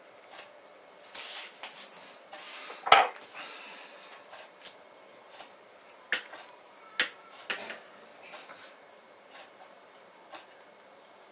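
A spatula scraping and tapping against a baking dish while spreading pastry cream, with a sharp clack about three seconds in and a few lighter knocks later.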